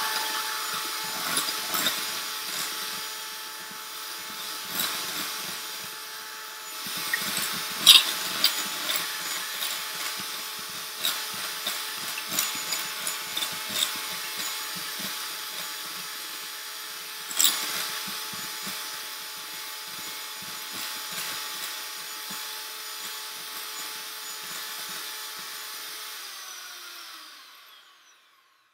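Electric hand mixer running steadily, its beaters whipping egg whites and sweetener to stiff peaks, with a few sharp clicks, the loudest about eight seconds in. Near the end the motor is switched off and winds down, its pitch falling.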